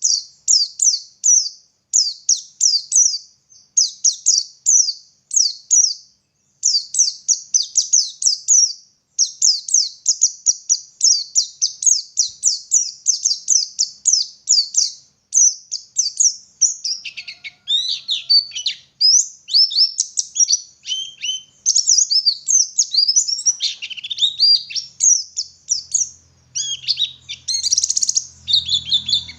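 White-eye (pleci) singing: short bursts of rapid, high, thin notes, turning about halfway through into a more varied warbling song with falling notes.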